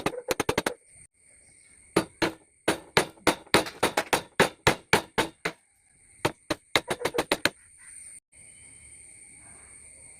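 A mallet tapping a wood-carving chisel into wood in quick runs of strikes, about four or five a second, with a short pause about a second in. The strikes stop about three quarters of the way through.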